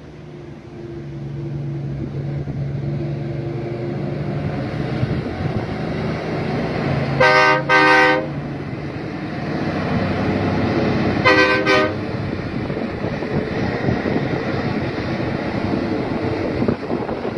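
Kenworth W900L's Caterpillar C15 Acert diesel engine pulling under load, growing louder over the first couple of seconds. Its air horn gives two pairs of short blasts, about seven seconds in and again about eleven seconds in.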